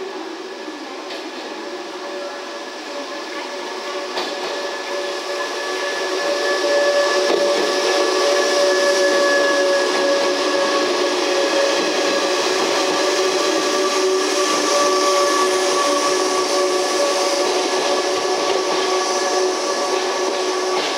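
Three-car train of Kumoya 145 cars with a Kuha 117 car between them passing slowly close by, with a steady whine at several pitches over the running noise. The noise grows louder about six seconds in as the cars come alongside. It echoes in an enclosed underground platform.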